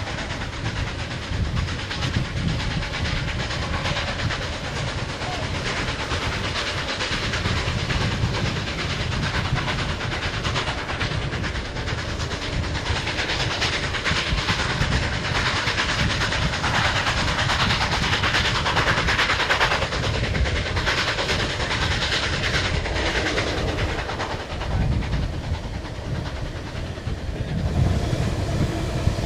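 Steam-hauled passenger train running at speed, heard from an open car: a steady rumble and clatter of wheels on the rails mixed with wind noise. It grows louder near the end as the train runs close alongside a line of freight cars.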